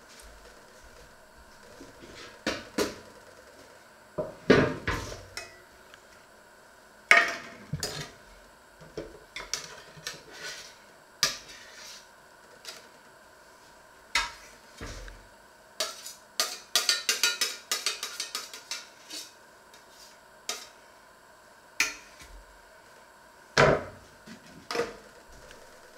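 Kitchen clatter: a metal baking tray handled on a wooden worktop and a knife cutting and scraping butter off a metal butter dish, heard as scattered knocks, clicks and scrapes. A quick run of clicks comes a bit past halfway, and a sharp knock near the end.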